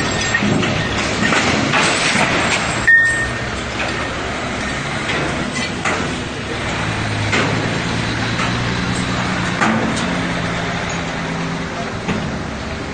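Busy outdoor noise: a vehicle engine running under a broad hiss, with people's voices in the background. A single sharp click about three seconds in.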